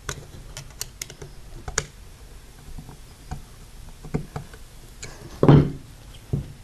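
Irregular small metal clicks and scrapes as a flat-blade screwdriver turns the screws of a brass squeegee handle, tightening it onto the squeegee channel. A louder knock comes near the end.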